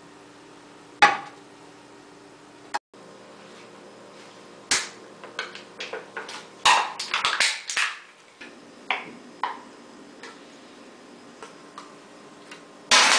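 A sharp knock about a second in. From about five to eight seconds, an aluminium soda can crackles in a run of quick clicks and crunches as it is crushed by hand, with a few more crinkles after. Near the end comes a loud clatter as the can drops into a plastic recycling bin.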